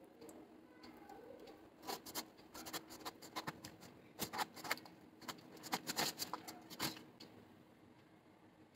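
Knife chopping raw jackfruit on a cutting board: a run of quick, light knocks from about two seconds in until about seven seconds in.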